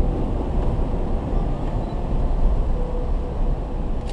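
Steady low rumble of a vehicle driving through shallow floodwater and mud on a paved street.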